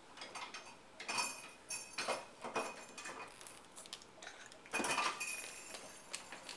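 Bottles and jars in a refrigerator clinking and knocking together as small children handle them: several separate clinks with a short ringing tone, the busiest cluster about five seconds in.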